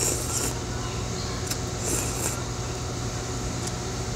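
A person slurping pho rice noodles: a short slurp right at the start and another about two seconds in, with a few light clicks, over a steady low hum.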